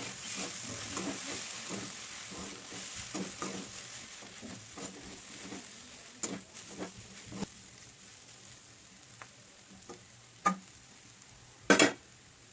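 Metal slotted spoon stirring and scraping roti strips and vegetables around a metal kadai, with oil sizzling under the food. The sizzle fades and the stirring strokes thin out to a few taps, ending in two sharp knocks near the end.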